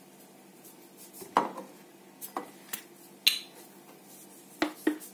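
A glass and kitchen dishes being handled: about six sharp clinks and knocks at uneven intervals.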